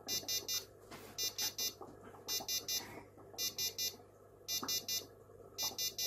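Keyestudio smart farm kit's buzzer module beeping in quick groups of three, about one group a second. The sensor code sounds this triple-beep pattern while the steam (moisture) sensor reads between 2000 and 4000, so it signals a moderately wet sensor.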